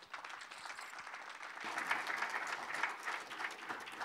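A small audience applauding a speaker's introduction, the clapping filling out about halfway through.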